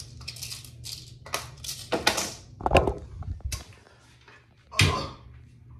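Clicks, taps and knocks of small objects being handled at a bathroom cabinet, with a heavier thud about three seconds in and another sharp knock near five seconds.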